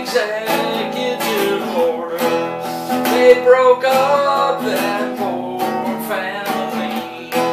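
Classical acoustic guitar being strummed in a steady rhythm, with a man singing a slow folk melody over it.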